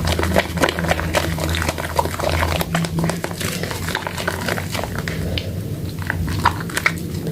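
Soaked soap and its lather worked and squeezed by hand, giving a dense, continuous run of small wet crackles and clicks over a low steady hum.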